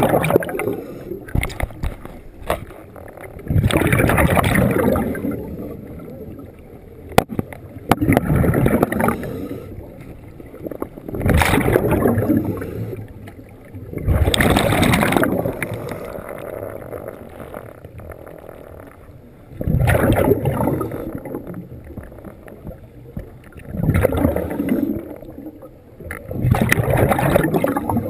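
Scuba diver breathing through a regulator underwater. Each exhalation sends a burst of bubbles gurgling out of the regulator, about eight times at a steady pace of one every three to four seconds, with quieter stretches between.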